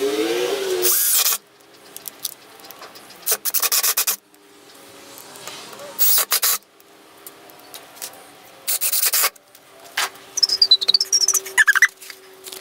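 DeWalt 18V cordless drill driving screws through a metal faceplate into a burl blank, in four short bursts of about a second or less, a few seconds apart. Near the end there is a high tone that glides downward.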